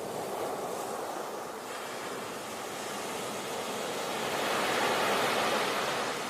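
Flowing river water, a steady rush that swells louder about four seconds in and eases slightly near the end.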